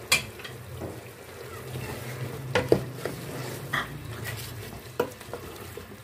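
A wooden spoon stirring mutton and korma masala through hot oil in an aluminium pot, the meat sizzling as it fries, with the spoon knocking and scraping against the pot several times over a steady low hum.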